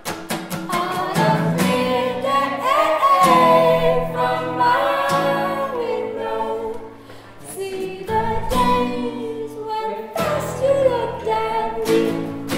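A folk song: sung vocals with long held notes over a strummed acoustic guitar.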